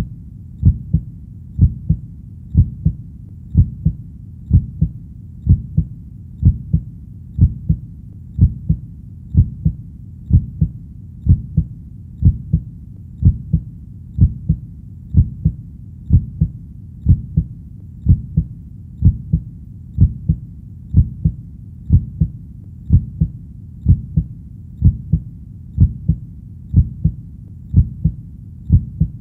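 Heartbeat, a steady lub-dub double thump at about one beat a second, low and even.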